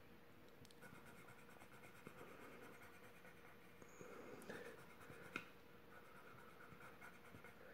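Faint scratching of a blue pencil drawing an outline stroke on paper, with one light tick about five and a half seconds in.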